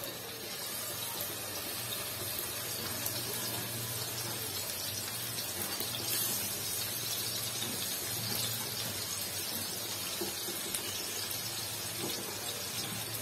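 Hilsa fish steaks sizzling as they are shallow-fried in hot oil in a frying pan, more pieces being laid in one after another: a steady hiss with small pops of spattering oil, a little louder from about a second in.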